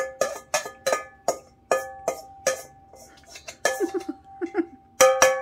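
A metal spoon striking and scraping inside a stainless steel mixing bowl, about a dozen quick clinks in an irregular rhythm, each leaving the bowl ringing, as the last of the rice is scraped out of the nearly empty bowl.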